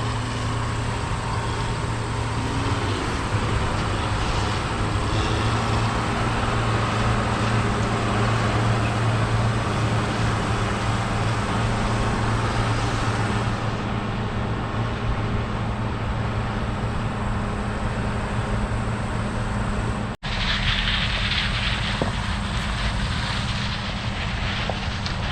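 Large diesel harvest machinery running at steady load, a continuous low engine drone. About 20 s in the sound cuts out for an instant, and a brighter hiss then joins the drone.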